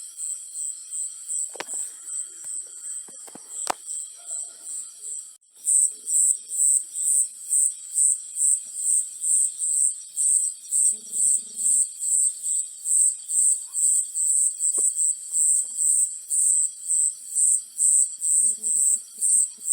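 Cricket chirping in an even, high-pitched rhythm of about two chirps a second. About five seconds in, the sound drops out for an instant and comes back louder.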